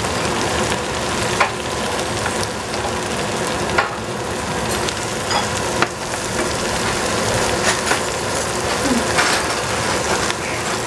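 Oil sizzling steadily in a frying pan as spinach, shiitake mushrooms and scrambled egg are stir-fried, with a wooden spatula now and then knocking against the pan.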